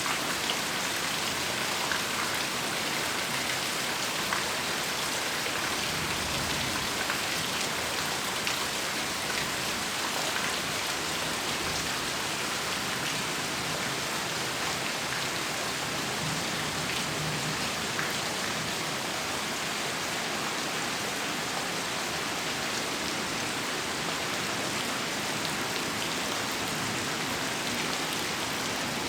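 Steady heavy rain: a dense, even hiss of rainfall with scattered individual drop impacts ticking on a surface.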